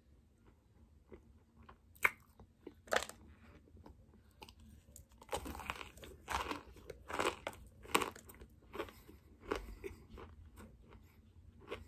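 Chunks of compressed cornstarch snapping and crunching between the teeth, recorded close up: two sharp cracks in the first few seconds, then a run of crunchy bites and chewing from about five seconds in.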